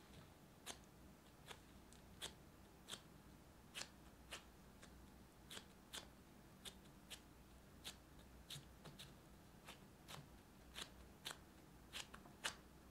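Faint, irregular crinkles and light taps of a disposable plastic glove handling and pressing soft yeast-dough balls flat on a baking mat, about one or two short clicks a second, the loudest near the end.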